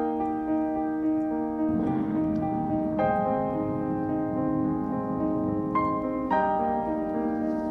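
Background piano music: slow, held chords that change every few seconds.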